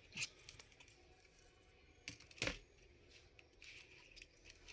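Faint handling noises of a replacement laptop keyboard being fitted into the laptop's case: a soft click just after the start, then two sharper clicks and rustles about two and two and a half seconds in.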